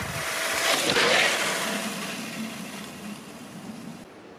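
Traxxas TRX-4 Bronco RC crawler driving in close over dry leaves: its electric motor and gears whining under the crunch and rustle of the tyres, loudest about a second in and then fading, with an abrupt drop just before the end.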